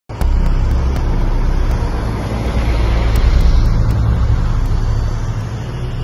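Road traffic going by close at hand: a steady rumble of cars and tyres, swelling a little about halfway through as a vehicle passes.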